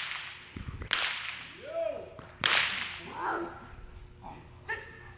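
Three sharp whip cracks in the first two and a half seconds, each echoing through a large indoor arena, with short vocal calls in between and after them.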